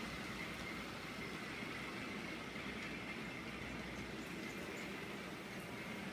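Model train running on a layout: a steady running noise with a faint high whine that holds level throughout.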